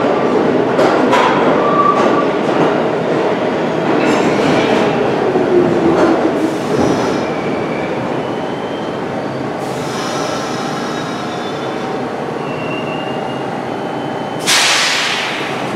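New York City Subway train moving through the terminal station with its wheels squealing on the rails, a falling whine around five to six seconds in, and a short, loud hiss near the end.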